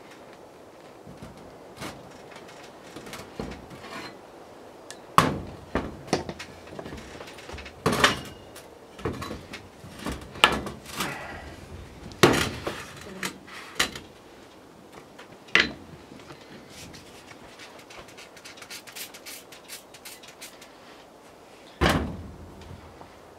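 Old Collins axe being handled and laid down on a wooden workbench: irregular knocks and clunks of the steel head and wooden handle against the bench, with a last heavy thump near the end.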